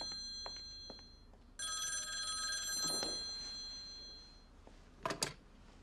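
Old-fashioned desk telephone bell ringing twice, each ring fading away, followed about five seconds in by a short double clatter as the receiver is picked up.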